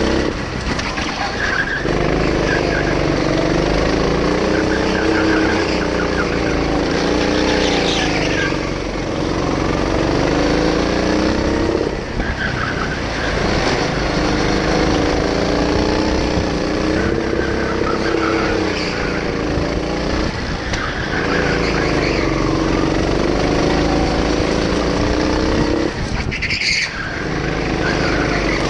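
Go-kart engine heard onboard, running hard, its note climbing as the kart accelerates and dropping off when it slows, several times over. Near the end a brief sharp high noise cuts across it.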